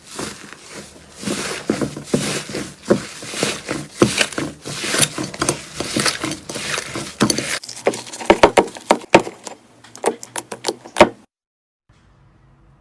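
Slime being squished and pressed, making dense wet crackling and popping that thins into sharper, separate pops near the end before cutting off suddenly.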